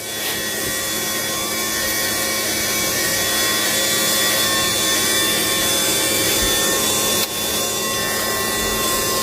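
Small electric gear motor of an RC model's cable winch running steadily, a grinding whir with a thin whine on top, briefly cutting out about seven seconds in.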